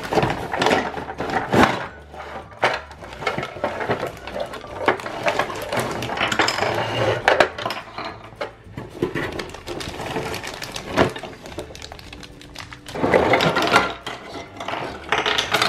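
Small hard plastic toy molds and parts clattering and clicking as they are handled and set down on a table, with cardboard packaging rustling, in a quick irregular series of knocks.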